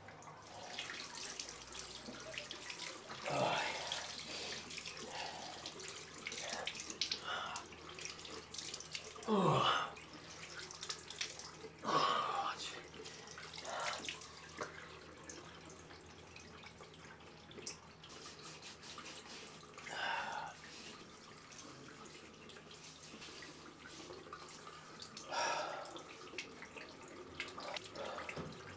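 Water running from a bathroom basin tap, with about half a dozen louder splashes and breaths as a man washes his face.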